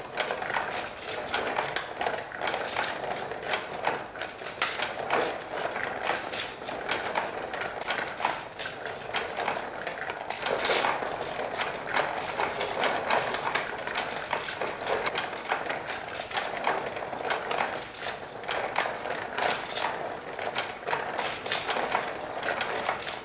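Recycled-wood automaton mechanism running: its wooden slats and moving parts click and clatter continuously in a rapid, irregular patter.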